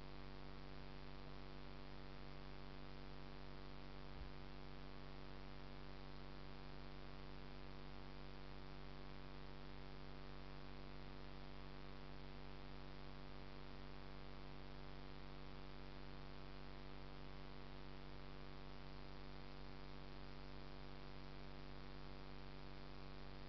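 Steady electrical hum with a layer of hiss, unchanging throughout, with a single soft low knock about four seconds in.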